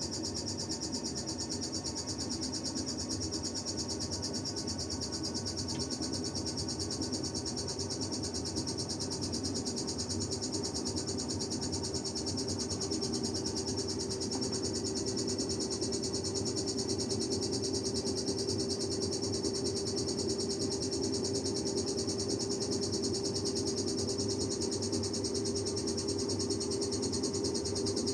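Sharp ES-GV8J washing machine in its spin cycle: a steady high-pitched squeal pulsing rapidly over the hum of the spinning drum, which rises slightly in pitch. The owner takes this squealing, heard only during spin, for a fault in the new machine.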